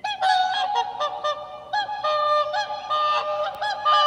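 Recorded swans calling, several birds with pitched calls held or repeated and overlapping one another, played back through a smart display's speaker.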